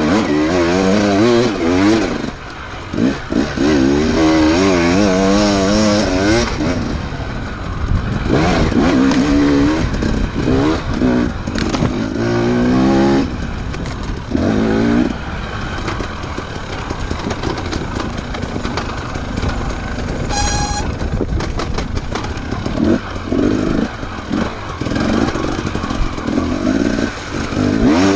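Enduro motorcycle engines revving, their pitch rising and falling again and again as the throttle is worked, loudest in the first half. A short high beep sounds about two-thirds of the way through.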